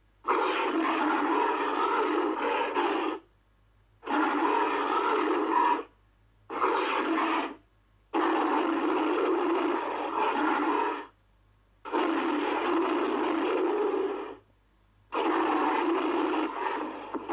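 A series of King Kong roar sound effects from the films: six separate roars, each one to three seconds long, rough and without a clear pitch, with short silences between them.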